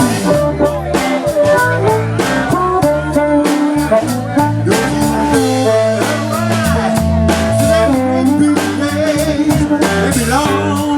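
A blues song playing, with a singing voice, guitar and drums.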